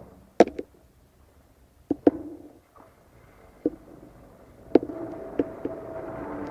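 Loud, cyclical, unexplained noise in the night sky, likened to a garbage truck. It comes as a series of sharp metallic-sounding knocks with short ringing tails, and from about five seconds in a droning hum with several steady tones swells up beneath them.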